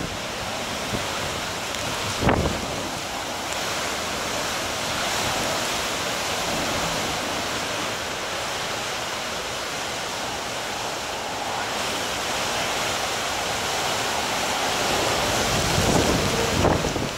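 Hurricane wind and heavy rain make a steady rushing noise that swells and falls in gusts. A sudden loud thump comes about two seconds in, and the gusts grow louder near the end.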